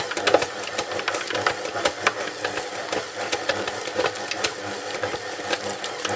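Stand mixer running with its dough hook kneading stiff bread dough in a metal bowl: a steady motor hum with irregular clicks and knocks as the dough is worked.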